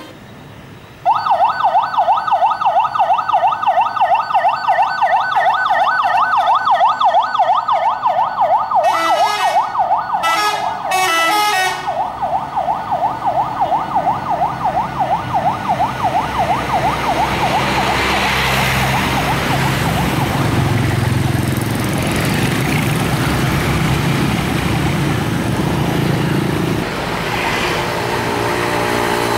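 Police escort siren in a fast yelp, its tone warbling rapidly up and down, with a choppier pulsing tone breaking in about nine to twelve seconds in. After about sixteen seconds the siren fades, leaving the rumble of heavy vehicles passing.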